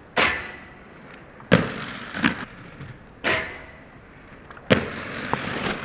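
Skateboard hitting pavement in a series of about six sharp clacks, from tricks popping and landing, each followed by a short hiss of wheels rolling.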